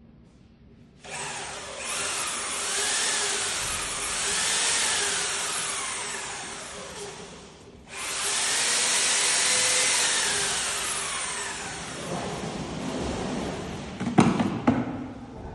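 A power tool running in two long runs of about six seconds each, its pitch rising and falling, then a few sharp knocks near the end.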